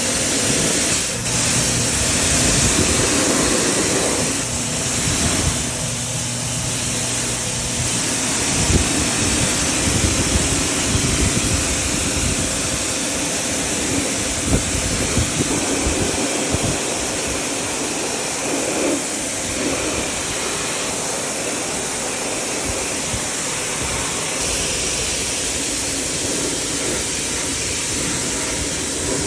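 Steady hiss of water spraying onto an air conditioner being washed, with a machine rumbling underneath, likely the washer's pump.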